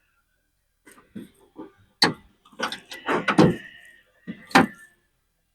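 Irregular metal clicks and clanks, a few ringing briefly, from a 1969 Chevelle door latch assembly being worked by hand as a linkage rod is pried at on its lever.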